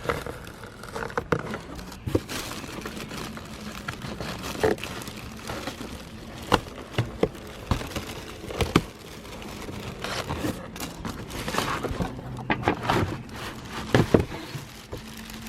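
Shipping packaging rustling and crinkling, with scattered clicks, taps and scrapes, as a potted shrub is worked loose from its box.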